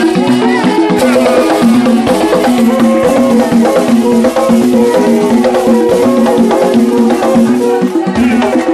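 Live traditional West African dance music: a fast percussion beat with wooden knocks and rattles, over short repeated pitched notes, steady and loud.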